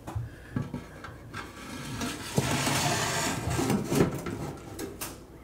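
A crown-molding trim cap being worked down over the top of a stainless steel range-hood chimney: scraping and sliding against the metal and the wall, loudest about halfway through, with a few light knocks before and after.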